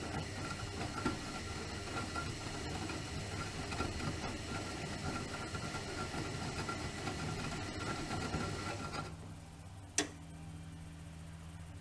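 Bauknecht WAK 5750 G washing machine's drum motor running on freshly replaced carbon brushes, with a faint steady whine; it stops about nine seconds in, leaving a low hum. A single sharp click follows about a second later.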